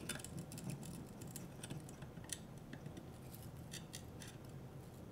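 Faint small clicks and scrapes of a steel digital caliper being slid and closed on a thick shard of broken champagne-bottle glass, the fragments shifting in gloved hands.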